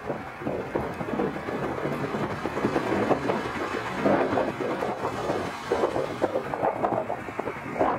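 Boeing 767-300 freighter's twin GE CF6-80C2 turbofans at takeoff thrust as the aircraft climbs away: a rough, crackling rumble that rises and falls in strength.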